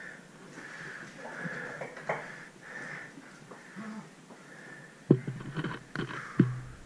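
A person breathing hard in short, rasping breaths, then a few sharp knocks about five seconds in and again a second or so later.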